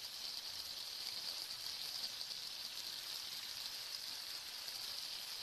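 Marinated elephant foot yam pieces sizzling steadily as they deep-fry in hot groundnut oil in a kadai, a fine crackling hiss.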